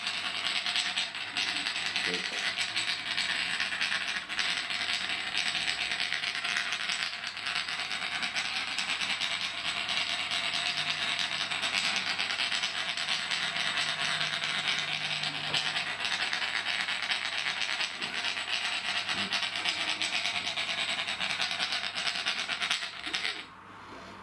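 Ribbed glass bottoms of two jars rubbed against each other over an upturned glass salt shaker: a continuous fast ratcheting rasp of glass on glass that shakes the salt out evenly. It stops abruptly near the end.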